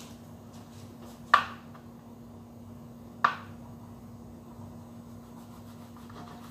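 Two sharp clatters of kitchen utensils or dishes on the counter, about two seconds apart, each ringing briefly, over a steady low hum.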